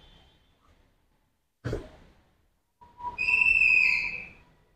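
A car door clicks open about two seconds in. A second later a high whistle-like tone sounds for about a second and a half and fades, with a faint steady hum under it.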